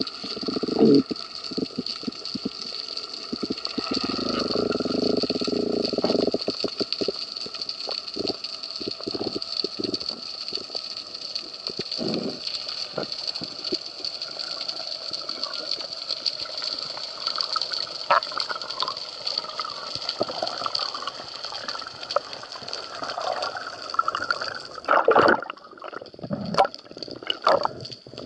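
Underwater sound picked up through an action camera's waterproof housing: water rushing and swirling with a steady hiss, broken by scattered knocks and clicks. The knocks grow more frequent near the end.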